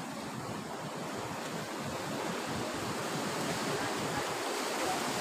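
Sea surf washing against the rocks: a steady rushing noise that swells slightly toward the end.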